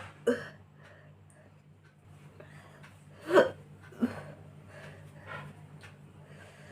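A woman burps from a stomach full of fizzy cola: one short, loud burp a little over three seconds in, with a smaller one just after.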